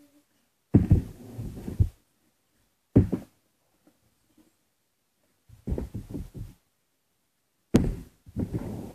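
Plastic bottle thudding down on the surface right beside the camera in repeated bottle flips: four landings, each a loud thud followed by short knocking bounces, the last starting with a sharp hit.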